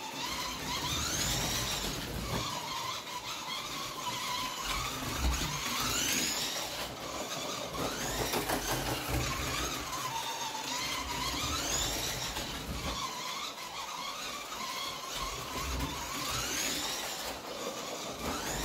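Scalextric slot car lapping the track, its small electric motor whining up in pitch on the straights and dropping back for the corners, with the guide and tyres rumbling in the slot. The rise and fall comes round about every five seconds, once per lap.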